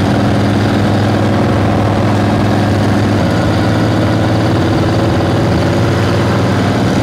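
Harley-Davidson flathead V-twin motorcycle engine running steadily on the road. Its pitch steps up slightly about three seconds in.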